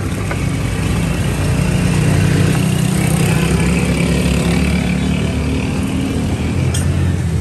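An engine running steadily with a deep, constant hum that swells slightly about a second and a half in, under a steady street hiss.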